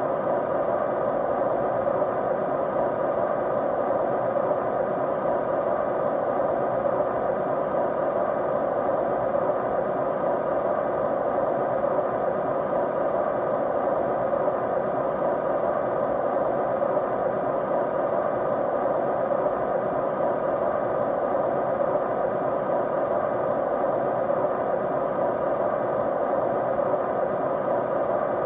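Steady white noise: an even, unchanging rushing hiss, fullest in the middle register.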